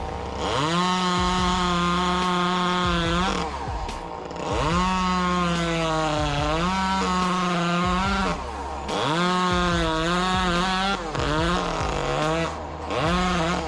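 Two-stroke chainsaw engine revved to full speed in repeated bursts of a few seconds, easing off briefly between them. Its high, buzzing note dips in pitch now and then within the bursts.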